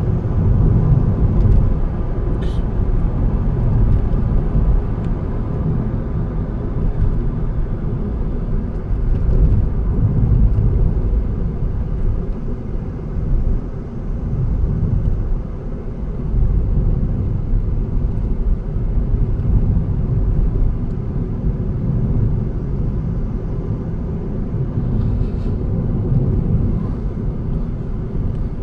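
A car driving along a road: a steady low rumble of engine and tyre noise, with a short click about two and a half seconds in.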